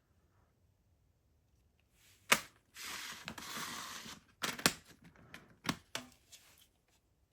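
CD case and packaging handled: a sharp plastic click about two seconds in, a rustling scrape lasting about a second and a half, then a few more clicks.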